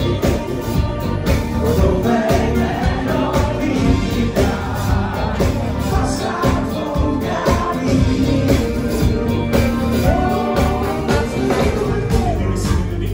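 Live funk band playing loud, with voices singing over a steady drum beat, bass guitar, and a horn section of saxophones and trombone.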